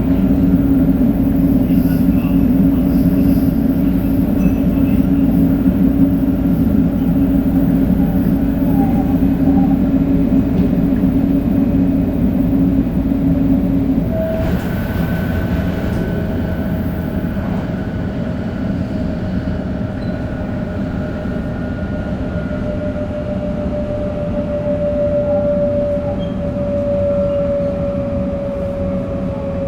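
Shinkansen 500 series running noise heard from on board. About halfway through, the low rumble drops away and a whine from the Toshiba GTO-VVVF inverter and traction motors sets in, slowly falling in pitch.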